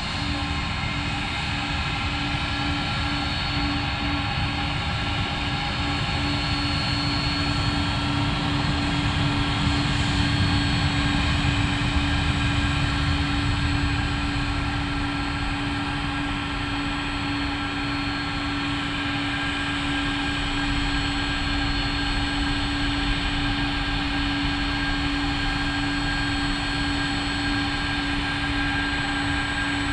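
Airbus A320-family airliner's jet engines at takeoff power: a steady rush of noise with several held whining tones, growing a little louder about ten seconds in and then easing back.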